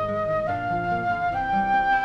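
Silver concert flute playing a melody that steps up through three held notes, the last sustained for about a second, over acoustic guitar accompaniment.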